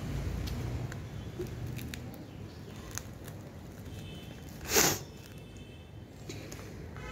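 Hands handling a soft blue plastic pouch: faint crinkles and clicks, with one short, loud crinkle of the plastic about five seconds in. A low rumble in the background fades in the first two seconds.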